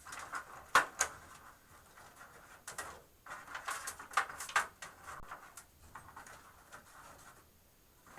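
Cables being pushed and tucked into place inside a rack-mount computer case: irregular sharp clicks and knocks with stretches of rustling and scraping between them.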